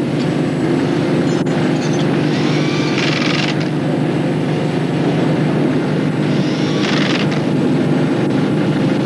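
A steady engine drone, with two short bursts of hissing, about three and seven seconds in.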